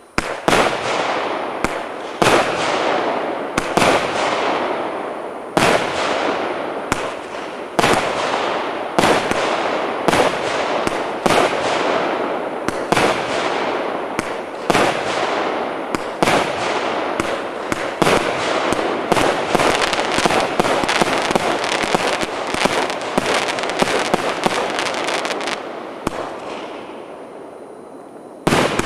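A consumer fireworks battery (cake) with 1-inch and 1.6-inch tubes firing shot after shot: sharp bangs, each trailing off in a fading hiss. The bangs come about once a second at first, crowd into a rapid barrage in the middle, then die away, with one last bang at the end.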